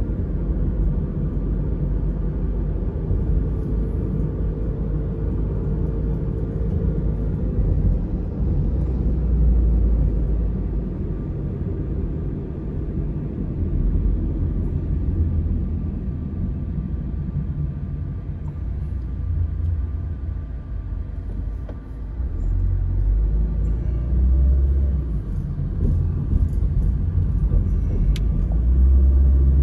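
A car driving along a city road: a steady low rumble of engine and tyre noise that swells and eases a little with speed.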